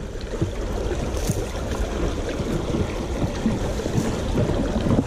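Creek water running steadily over rocks in a shallow riffle.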